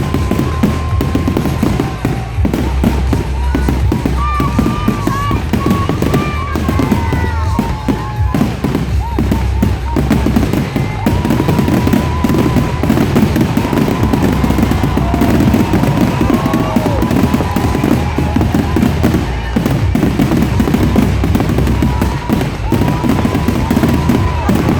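Fireworks going off in quick succession: a continuous barrage of bangs and crackles, with short whistles, over music.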